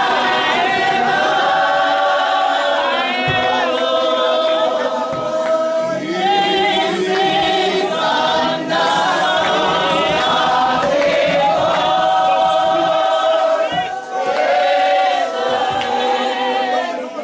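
A Spiritual Baptist congregation singing together without instruments, many voices in unison, with short breaks between lines.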